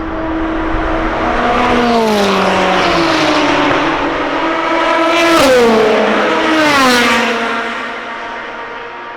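Race cars passing at high speed one after another, each engine note dropping sharply in pitch as it goes by; the loudest pass comes about five and a half seconds in, then the sound fades away.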